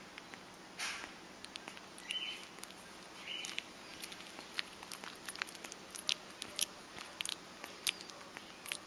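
Flying fox pup smacking and chewing banana: faint, quick wet clicks of its mouth, coming irregularly and more often in the second half.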